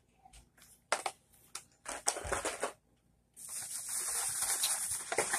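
Handling of carded toy cars and their packaging: a few light clicks, then rustling and crinkling of plastic and cardboard, with a longer stretch of crinkling from about three and a half seconds in.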